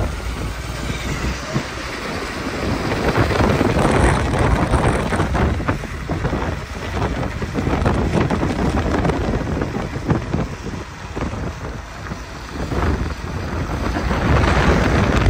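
Wind buffeting the microphone over the road noise of a ride along a wet highway, the loudness rising and falling; motorcycles pass close by, with a louder stretch near the end.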